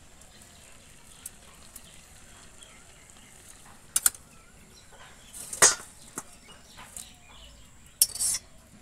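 Metal spatula clinking against a steel kadai, a few sharp clanks with the loudest a little past halfway. Near the end there is a short clattering rush as the boiled taro pieces are tipped from the kadai into a steel bowl.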